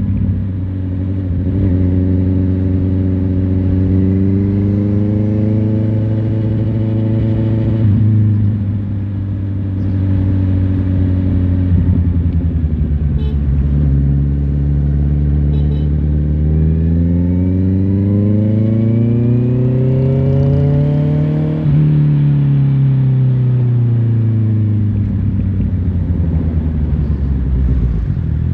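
Honda CBR650R's inline-four engine running on the move. Its pitch climbs under throttle, eases off, then climbs again. About three-quarters through it changes suddenly and the revs fall away as the bike slows.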